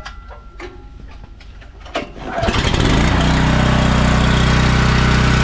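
Gas engine of a 4 GPM, 3,500 PSI direct-drive pressure washer being started. A few clicks and knocks come first, then the engine catches about two and a half seconds in and settles into steady running.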